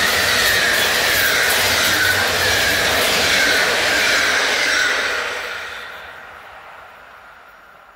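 InterCity passenger coaches running past at speed, their wheels loud on the rails with a high whine that slides down a little in pitch. The last coach goes by about five seconds in and the noise fades away.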